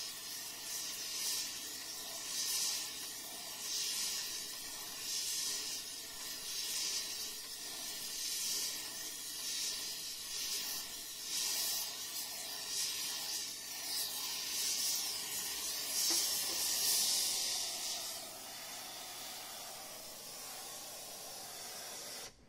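Oxy-fuel heating torch flame hissing on the steel of an excavator stick, swelling and fading about every second and a half, then settling to a steadier, quieter hiss about 18 seconds in. The steel is being spot-heated to heat-straighten the warped stick.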